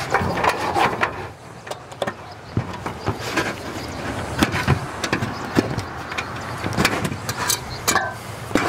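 Thin aluminum J-wrap sheet being flexed and bent along a knife score to break off a strip, giving a string of irregular metallic crinkles and sharp clicks.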